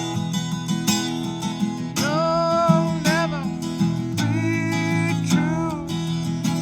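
Music: a strummed acoustic guitar, with a gliding melody line over it about two seconds in and again just after four seconds.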